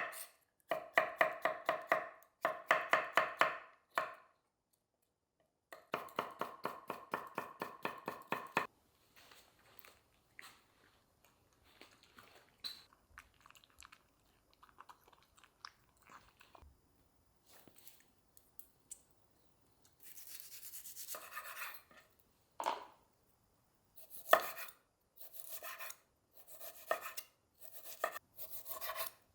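Kitchen knife chopping on a cutting board in fast, even runs, broken by a quieter stretch of small handling clicks, then slower, separate strokes near the end.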